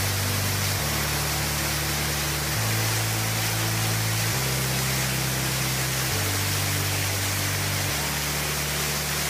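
Waterfall rushing steadily over rock ledges, with soft background music whose low notes change about every two seconds.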